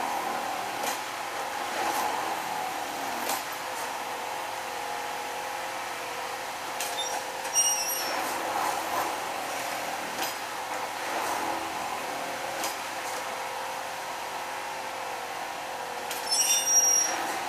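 Rail track tamping machine running with a steady hum, with scattered metallic knocks and clanks from its working gear. There are two brief high squeals, one about halfway through and one near the end.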